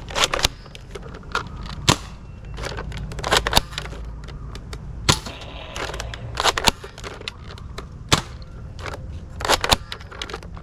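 Toy guns firing: a series of about twenty sharp, irregular shot-like snaps and clicks, some with a short ring after them, over a low steady hum.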